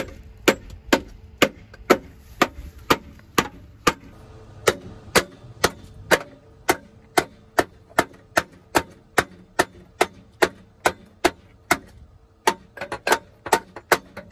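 Steady hammer blows, about two a second, knocking a rusted, sagging exhaust off the underside of a Jeep Grand Cherokee WJ, with a quicker run of lighter blows near the end.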